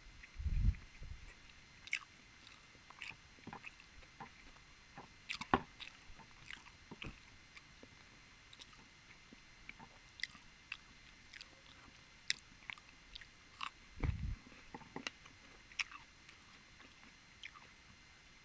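Close-miked eating sounds: scattered chewing, biting and wet mouth clicks, with two low thumps, one just after the start and one about 14 seconds in.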